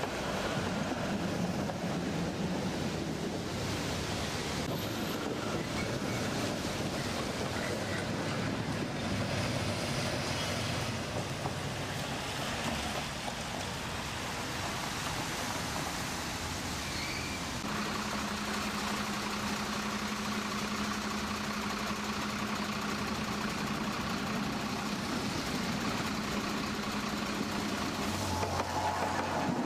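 Trams and road traffic passing on wet streets: a tram rolls by at the start and a car's tyres hiss on the wet road. A steady hum sets in a little past halfway, and a yellow articulated tram rolls in near the end.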